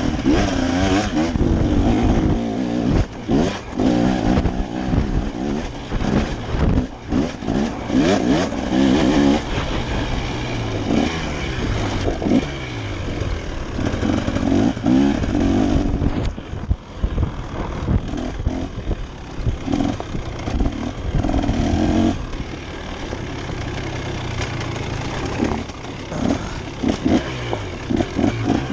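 KTM dirt bike engine heard on board, revving up and dropping back again and again as it is ridden hard over rough dirt trail, with knocks and rattles from the bike over the bumps.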